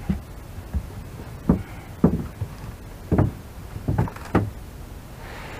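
Hinged carpeted deck panel on a jon boat being pressed and knocked down onto its metal frame and wooden battens, making several hollow thumps with a short ring, spaced irregularly about half a second to a second apart.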